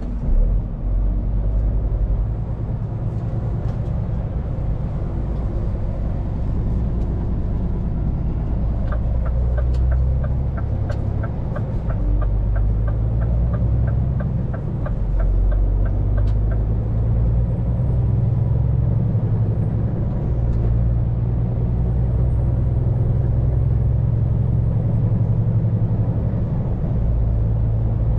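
Scania P410 truck's diesel engine running under way, a steady low drone with road noise, heard from inside the cab. From about nine seconds in, a run of regular ticks, about three a second, lasts some seven seconds.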